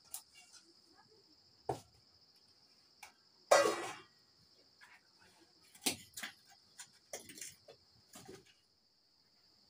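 A stainless steel bowl clatters as it is set down on a mud stove ledge about halfway through, with a few lighter knocks and taps from handling bowls and firewood around it. Under everything runs a steady high chirring of crickets.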